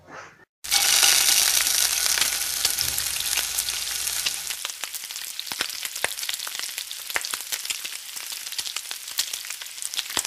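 Food frying in hot oil: a steady sizzle, starting abruptly about half a second in, with scattered sharp crackling pops. The sizzle thins about halfway through while the pops continue.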